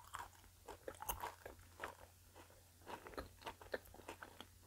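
Close-miked chewing of chocolate, faint: many small irregular crunches and mouth clicks.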